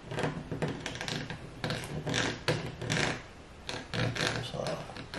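Pen scratching across a plastic sole-protector sheet in short, irregular strokes as it traces around a sneaker's outline.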